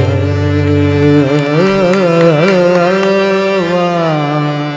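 Closing phrase of a Marathi abhang (devotional song): a singer holds a long note, bending it up and down, over a steady harmonium, with the mridang and tabla silent. The sound fades near the end.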